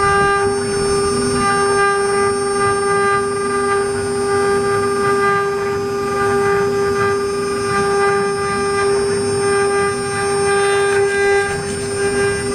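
CNC router running, its spindle giving a steady, unbroken high whine over a rougher, uneven machining noise.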